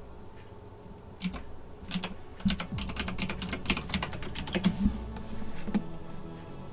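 Typing on a computer keyboard: a run of irregular keystrokes starting about a second in and stopping near the end, as a word is typed in.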